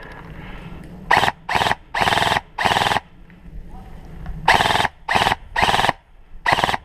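Airsoft gun firing in short full-auto bursts, seven quick rattling bursts of a quarter to half a second each.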